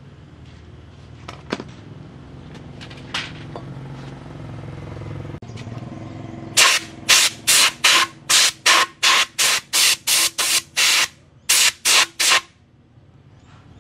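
Compressed air blow gun giving about fifteen short, loud blasts in quick succession, two or three a second, starting about halfway through, blowing out the cylinder head and valve gear of a diesel engine. Before the blasts there is a low steady hum and a few light clicks.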